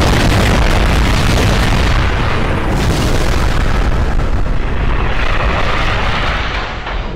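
Cartoon battle sound effects of explosions and booms, a dense continuous din that lets up near the end.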